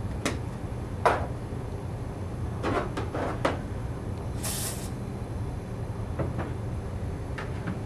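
Aerosol can of Plexus plastic cleaner being handled: sharp knocks and clicks as the can is shaken and its cap pulled off, the loudest about a second in. Then one short spray hiss onto a microfiber towel, about four and a half seconds in, over a steady low hum.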